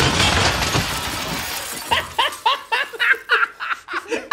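A sharp bang from a homemade gas-powered vegetable cannon, then glass shattering and tinkling for about two seconds as the shot smashes into a glass-fronted display cabinet. Laughter follows.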